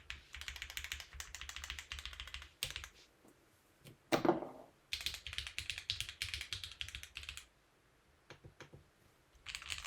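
Typing on a Monsgeek M1 mechanical keyboard with stock Gateron Pro Yellow linear switches and GMK keycaps, no foam: fast runs of keystrokes, broken by a pause. About four seconds in comes one louder, lower sound sliding down in pitch, and near the end a few scattered single presses before typing picks up again.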